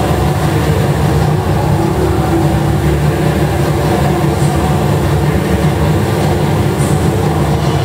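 Loud, steady roar of the HSBC Rain Vortex, a tall indoor waterfall plunging into its basin, with a few steady low tones underneath.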